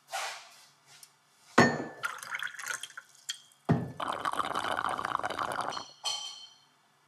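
Glass and crockery clinking on a kitchen counter, then about two seconds of liquid pouring into a glass, with a last ringing clink near the end.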